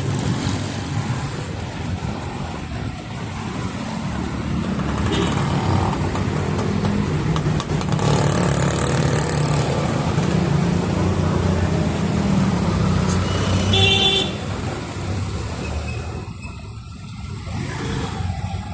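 Busy town street traffic: engines of passing vehicles running in a continuous rumble that swells through the middle, with a short vehicle horn toot about three-quarters of the way through.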